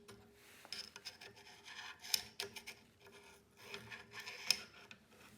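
Light clicks and rubbing of a scope base and its small screws being handled and worked on the rifle, with a few sharper clicks about two seconds in and again near the end.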